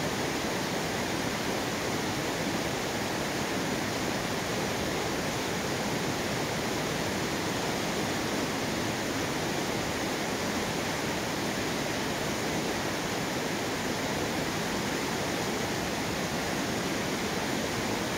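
Fast-flowing mountain river rushing white over rocks and boulders, a steady unbroken rush of water.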